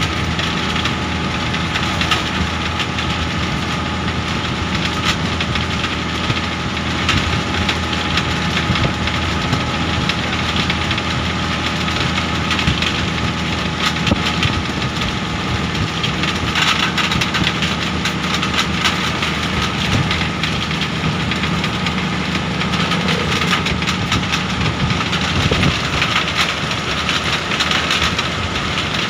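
Steady engine drone and road noise of a vehicle driving along a highway, heard from inside it, with frequent small clicks and rattles throughout.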